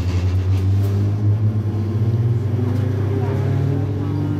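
MTR East Rail Line MLR electric train pulling out of a station, heard inside the car. Its traction motors give a strong low hum, and a tone above it rises steadily in pitch as the train accelerates, over the rumble of the running gear.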